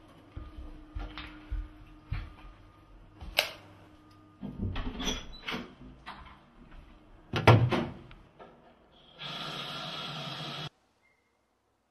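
Soft footsteps, small knocks and rustling, with a loud sharp thump about seven and a half seconds in. Then a tap runs water steadily into a sink for about a second and a half, and the sound cuts off abruptly.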